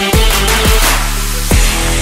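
Electronic background music with held synth tones and deep bass hits that sweep downward, falling on the beat.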